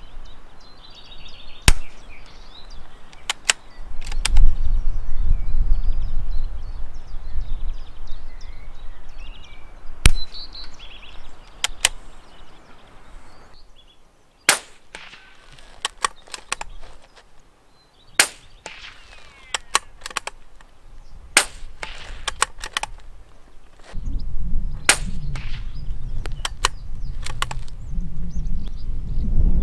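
Suppressed .22 LR bolt-action rifle firing single shots, sharp cracks a few seconds apart with smaller clicks in between. Wind buffets the microphone at times.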